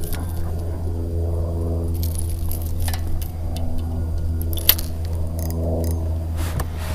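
A crankbait's metal treble hooks and hardware jingling and clicking as the lure is handled by hand, with one sharp click a little over two-thirds of the way through, over a steady low hum.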